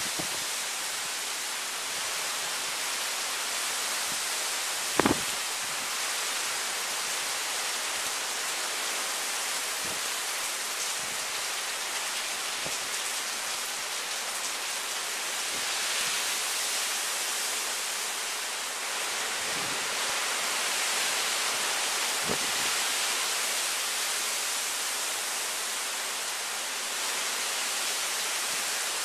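Heavy wind-driven rain, a steady hiss that swells now and then with the gusts. A sharp thump about five seconds in, with a few fainter knocks later.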